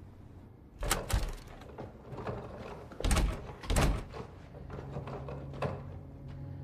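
Room door being opened and shut: several sharp clunks and thuds, the loudest about one second and three to four seconds in. A steady low hum follows.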